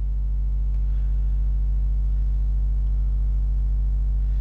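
Steady electrical mains hum: a constant low drone with a stack of even overtones above it, unchanging throughout.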